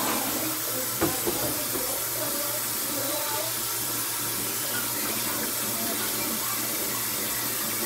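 Kitchen faucet running steadily into the sink while dishes are washed, with a sharp clink of a dish about a second in.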